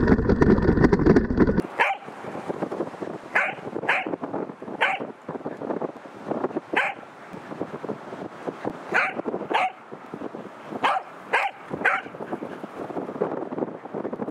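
Loud rough rumbling noise that cuts off abruptly after about a second and a half. Then a Pembroke Welsh corgi barks about ten times, in short sharp barks, singly and in quick pairs.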